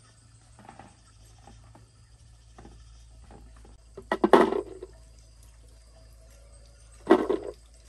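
Small peeled bulbs dropped by the handful into a glass jar, clattering against the glass and each other, twice: about four seconds in and again about seven seconds in.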